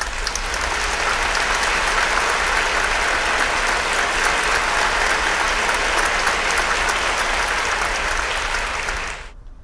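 Audience applauding, a dense patter of many hands clapping that dies away quickly near the end.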